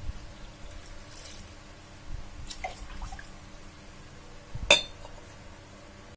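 Last drips of water falling into a stainless-steel pot after filling, with a few small ticks and one sharp metallic clink, the loudest sound, about three quarters of the way through.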